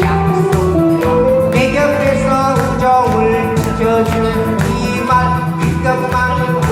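Fast disco-style backing music with a steady beat and a gliding melody line.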